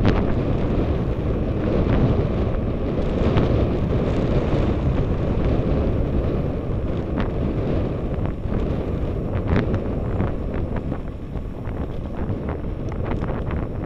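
Wind rushing over the microphone of a camera on a moving road bicycle, a steady low roar, with a few faint ticks in the second half.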